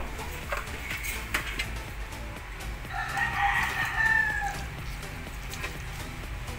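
A rooster crows once, about three seconds in: a single call of about a second and a half that drops in pitch at the end. A few light knocks come before it.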